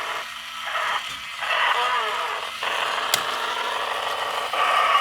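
A first-generation Robot Commander battery-operated toy robot (1993) giving out its odd, harsh, crackly electronic sound through its small speaker. The sound comes in stretches broken by short gaps, with a sharp click about three seconds in.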